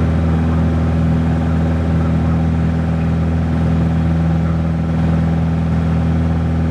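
Light propeller airplane's piston engine and propeller running at steady climb power just after takeoff, heard from inside the cabin as a loud, even drone with a strong low hum.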